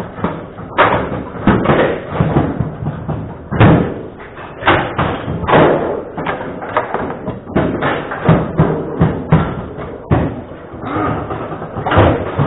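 Table football match play: irregular sharp knocks and slams, roughly one or two a second, as the ball is struck by the player figures and rods and hits the table walls.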